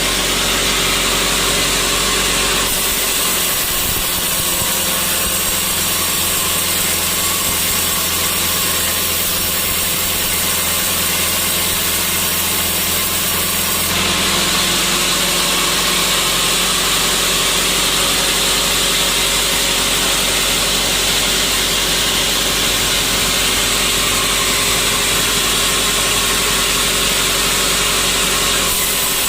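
Sawmill saw and machinery running steadily, with the sound shifting abruptly a few times.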